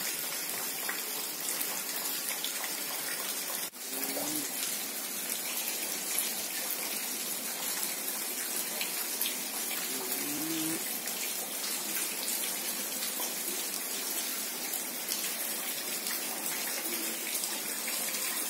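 Steady hiss of water, with a brief dropout about four seconds in.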